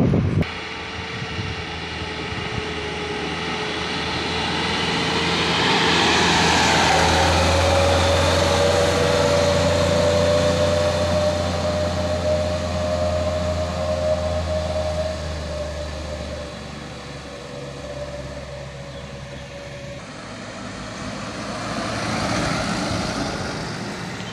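Diesel truck engines labouring up a steep climb. The low engine drone swells as one truck passes close, about a quarter of the way in, then fades, and builds again as another truck approaches near the end.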